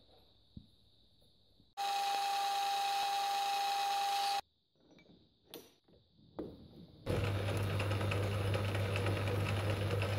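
Metal lathe running in two stretches. First a steady pitched hum for about two and a half seconds. Then, after a few quiet seconds, it starts again about seven seconds in, with a low motor hum under a rough hiss while a die holder in the tailstock is set against the threaded work.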